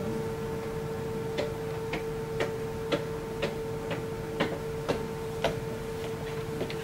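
Sharp, regular ticks, about two a second, starting about a second and a half in, over a steady hum.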